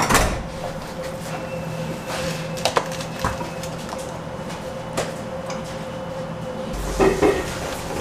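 Food-prep work at a kitchen table: a few light knocks and clatters from hands, utensils and a steel bowl, the loudest right at the start and a pair about seven seconds in, over a steady hum.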